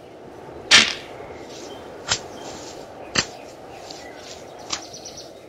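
A sharp swish just under a second in, followed by three sharp cracks spaced about a second or more apart, over a steady outdoor hiss.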